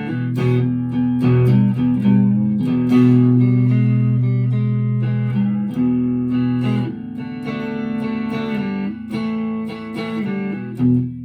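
Chapman ML3 Thinline Pro Classic electric guitar played clean through a Harley Benton Tube15 valve amp with a thin pick: a run of picked single notes and chords left to ring.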